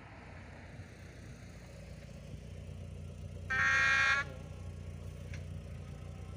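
An approaching diesel passenger train sounds its horn once, a short steady blast of several tones about three and a half seconds in, warning of the crossing. Under it the train's engine rumbles low and slowly grows louder.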